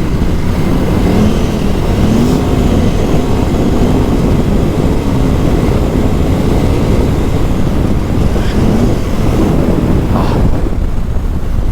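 KTM 950 Adventure S's LC8 V-twin engine running under a rider's throttle off-road, its note rising and falling over and over.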